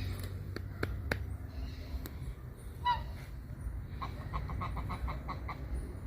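Animal calls: a few sharp clicks, one short call about three seconds in, then a rapid run of about eight short clipped calls, over a low steady rumble.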